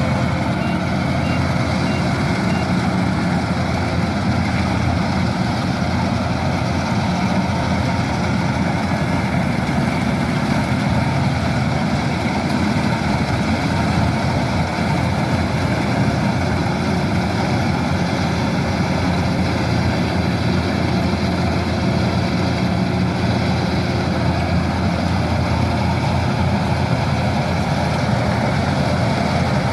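Kubota DC-108X combine harvester running steadily with an unbroken engine drone, its level and pitch unchanging.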